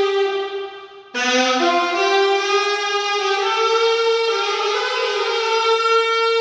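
Alto saxophone playing slow, sustained notes. A held note fades out about a second in, then after a brief pause a new phrase begins on low notes and climbs in steps to longer held notes.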